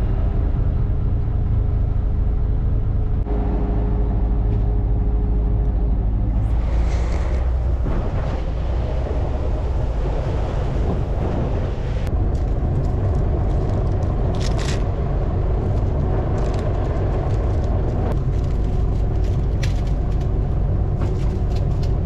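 Boat engine running steadily under way: a continuous low rumble whose pitch shifts a few times, with a few brief hissing noises over it.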